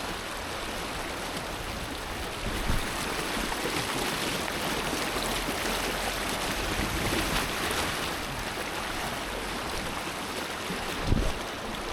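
Fast-flowing mountain river rushing steadily around someone wading through it, with two dull low thumps, one a little under three seconds in and one near the end.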